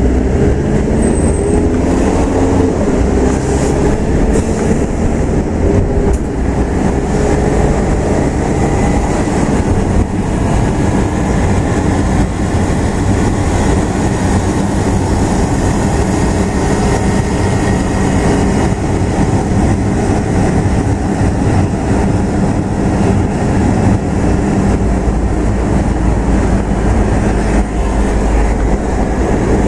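Steady engine and tyre rumble of a vehicle driving along a city road, heard from the moving vehicle, with a faint rising engine tone in the first few seconds as it picks up speed.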